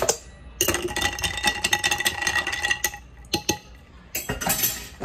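A spoon stirring ice cubes in a tall glass of soda and grenadine, clinking rapidly against the glass with a ringing tone for about two seconds, then a few separate clinks.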